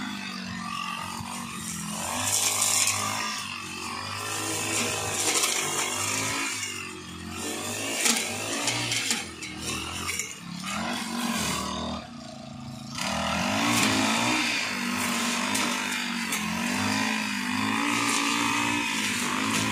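Petrol brush cutter engine running at high speed while cutting tall grass, its pitch rising and falling as the throttle is worked, easing off briefly about 12 seconds in.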